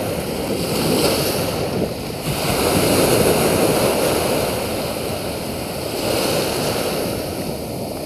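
Small sea waves breaking and washing up a sandy beach at the water's edge, the surf swelling loudest about three seconds in and then easing.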